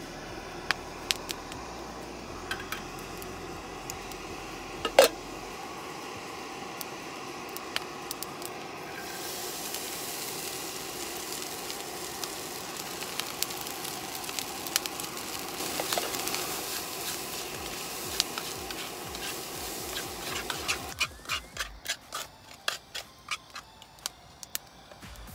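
Chicken rice sizzling in a frying pan on a canister gas stove, stirred with a spatula, with a sharp clank about five seconds in. The sizzling grows louder about nine seconds in when the rice goes in. About 21 seconds in it stops, giving way to quick taps and scrapes of the spatula as the rice is scooped out of the pan.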